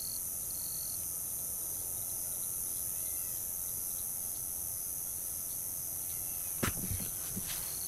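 Evening chorus of crickets and other insects, a steady high-pitched shrill; a single sharp knock near the end.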